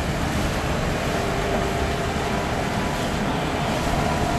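Steady machinery noise from an amphibious excavator running a Dragflow HY85B hydraulic dredging pump, with a low rumble and a faint whine, as slurry gushes from the pump's discharge hose.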